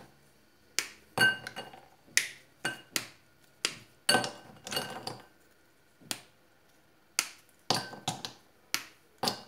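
A bar of chocolate snapped into squares by hand: a string of about fifteen sharp snaps at an irregular pace, some with a short clink as pieces drop into a glass bowl.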